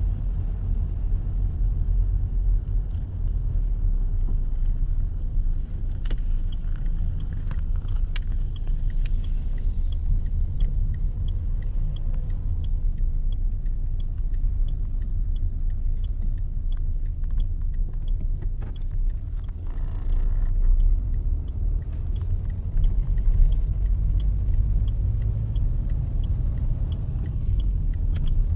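Car driving on wet roads, heard from inside the cabin: a steady low rumble of engine and tyres, with a faint, regular light ticking through most of it.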